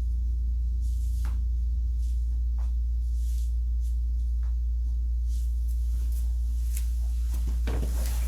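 A steady low electrical hum, with a few faint scattered clicks and a louder brief rustling cluster near the end: handling noise as a chiropractor works a patient's foot and ankle during an adjustment.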